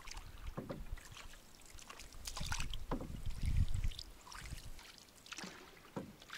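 Canoe paddles dipping and pulling through calm lake water, with irregular drips and small splashes.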